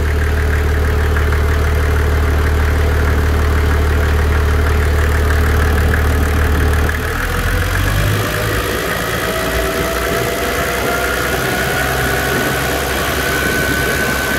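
Freshly rebuilt Toyota 1HZ straight-six diesel idling steadily as it warms up. About seven seconds in the low drone eases a little, and a faint high whine slowly rising in pitch comes in near the end.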